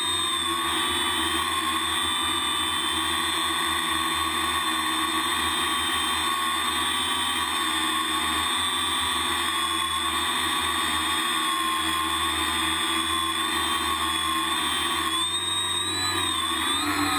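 Multirotor drone's brushless motors and propellers whining steadily, as picked up by the onboard camera. The pitch wavers slightly with the throttle and swings up and down near the end.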